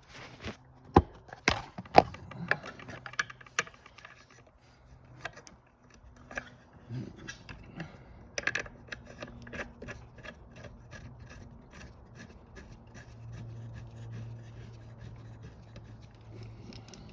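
Ratchet wrench with a 17 mm socket tightening a seatbelt anchor bolt. First come knocks and scrapes as the bolt is set in place, then from about halfway a steady run of ratchet clicks, two or three a second.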